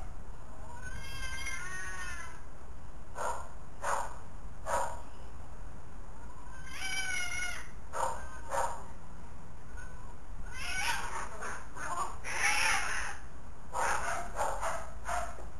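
Domestic cats yowling and meowing, with two drawn-out wavering calls about a second in and near seven seconds. Short sharp noises are scattered throughout, and a harsher, noisier stretch comes around eleven to thirteen seconds.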